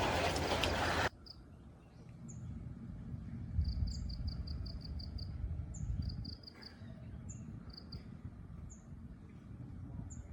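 A loud rushing noise cuts off suddenly about a second in. Then there is quiet outdoor ambience: short, high chirps from small wild animals, some in quick runs of about five a second, over a low rumble.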